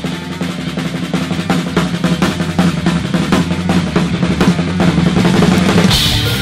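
Rock drum kit playing a fast roll of rapid snare and tom strokes with bass drum, over a held low note. Just before the end, a cymbal crash and the full band with guitars come in.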